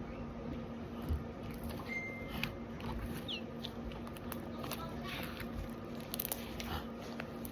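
Sticky slime being kneaded and stretched by hand, giving scattered small clicks and crackles. A faint steady hum runs underneath.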